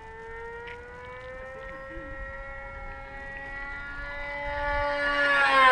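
Radio-controlled model airplane's engine: a steady high-pitched buzz that grows louder as the plane approaches, peaking near the end as it passes close by, where its pitch starts to drop.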